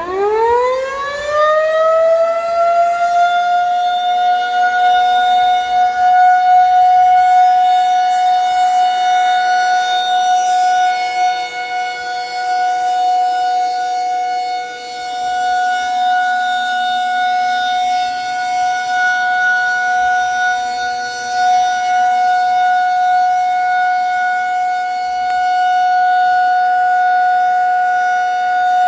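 Federal Signal Model 2001 outdoor warning siren winding up from a low growl to a high single tone within about three seconds, then holding a steady alert tone. The siren is sounding its test a few minutes late.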